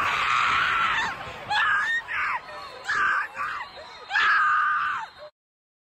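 Spectators screaming and yelling in a string of loud, high-pitched shouts, the longest near the end. The sound cuts off suddenly shortly before the end.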